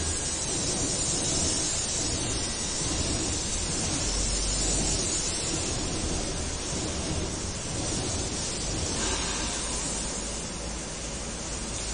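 Steady hiss of background noise, even and without distinct events.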